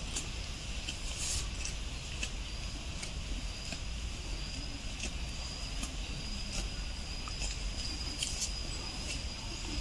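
Outdoor ambience: a steady low rumble, a thin steady high tone that comes in about three seconds in and holds, and a few faint scattered clicks.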